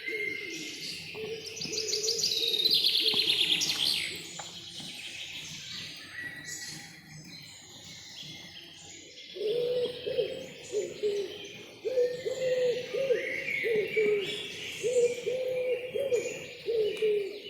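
Forest birdsong: several songbirds singing high, with a loud, fast, trilling song about two to four seconds in. From about halfway, a low bird call starts and repeats in short notes, several a second.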